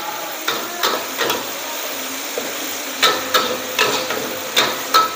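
Metal spatula scraping and clanking against a wok as diced meat is tossed in sizzling oil. The clanks come in uneven runs over a steady frying hiss.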